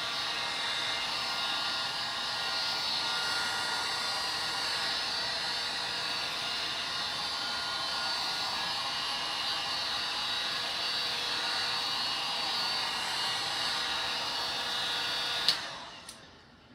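Handheld electric heat gun running steadily, its fan blowing with a faint whine, then switched off with a click near the end, the airflow winding down.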